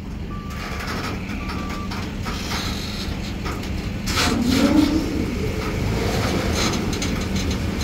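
Forklift engine running under load, with its reversing beeper sounding twice in the first two seconds. About four seconds in, the wooden crate scrapes and creaks as the forklift shoves it along the trailer bed.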